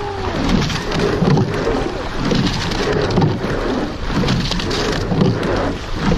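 Rowing shell at full pressure: sweep-oar blades splashing through the water and water rushing along the hull, pulsing in a steady rhythm with each stroke.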